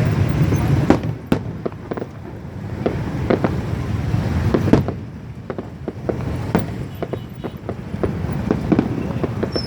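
Fireworks display: a dozen or so sharp bangs and crackles at irregular intervals, over a steady low rumble.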